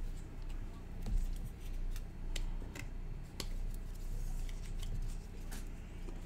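Trading card being slipped into a clear plastic sleeve and then a rigid plastic toploader: light plastic rustling with scattered small clicks and ticks.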